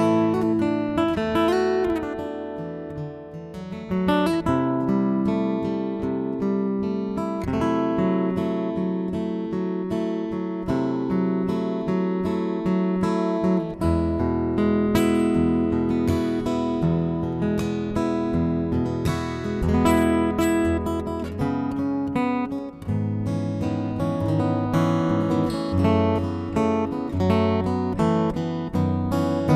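Solo steel-string acoustic guitar played fingerstyle: an instrumental piece with low bass notes ringing under a picked melody.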